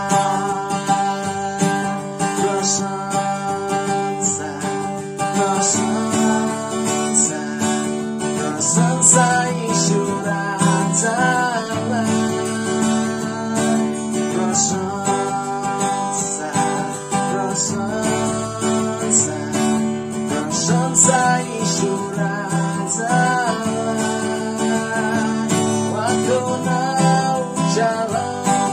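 Acoustic guitar strummed in a steady rhythm, moving through open G, D and C chords.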